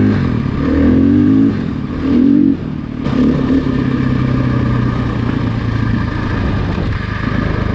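Off-road vehicle engine revving up in three short bursts, then running at a steadier, lower pitch.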